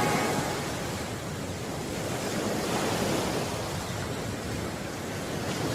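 Black Sea surf washing onto the beach, a steady rush of breaking waves that swells and eases slowly.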